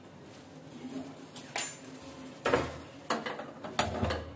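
Metal kitchenware being handled: a series of separate clinks and knocks of pots and utensils, starting about a third of the way in, a couple of them with a heavier thud.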